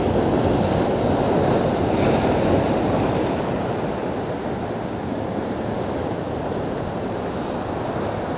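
Rough sea surf surging and breaking over shoreline rocks: a steady wash of waves, a little stronger in the first few seconds.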